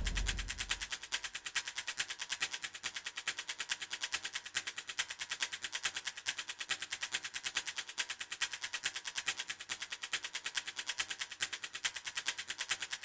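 Rapid, perfectly even ticking, about nine sharp ticks a second, starting just after a single hit at the start and running steadily until drum-kit music comes in.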